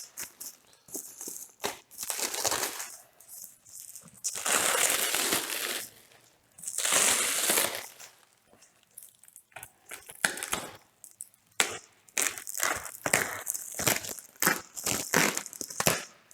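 Cardboard and packing material rustling and crinkling as a package is unpacked by hand. There are two longer rustles about four and seven seconds in, then a run of quick short rustles and knocks near the end.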